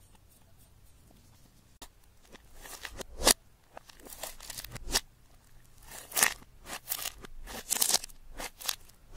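Thick pink slime being poked, squeezed and folded by hand, making an irregular run of sticky crackling and squelching pops. It starts after a faint first two seconds, with one sharp loud pop soon after and a dense cluster near the end.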